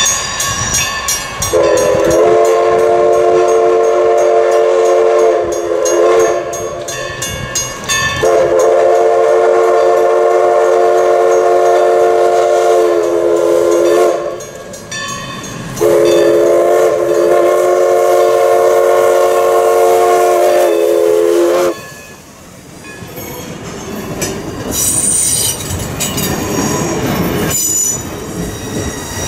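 Steam whistle of Everett Railroad No. 11, a 1920 Alco 2-6-0 Mogul steam locomotive, sounding three long chime blasts as the train approaches, each sagging slightly in pitch as it cuts off. After the last blast the passenger coaches roll past close by, wheels clattering and squealing on the curve.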